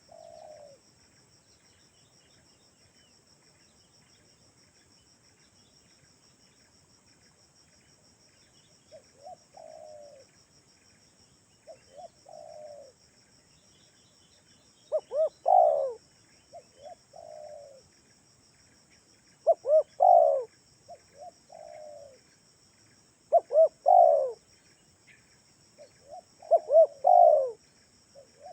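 Spotted dove (tekukur) cooing: repeated short phrases, soft at first, then louder phrases about every four seconds in the second half, each followed by a softer one. A steady high insect buzz runs underneath.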